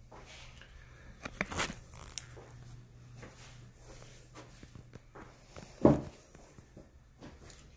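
Handling noise from a phone camera being picked up and moved by hand: scattered rustles and soft knocks, a cluster of them between one and two seconds in, and a louder dull thump near six seconds, over a faint steady low hum.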